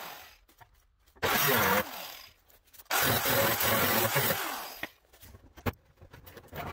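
Angle grinder cutting steel on an old truck fender to remove a brace: two spells of cutting, a short one about a second in and a longer one from about three to five seconds in, each starting and stopping abruptly. Near the end come a few short, sharp metal clinks and knocks.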